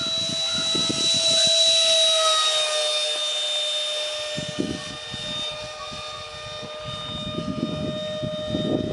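Model F-18 jet's ducted fan whining steadily as it flies past. A rush of air peaks about two seconds in, and the whine drops slightly in pitch just after. Wind buffets the microphone.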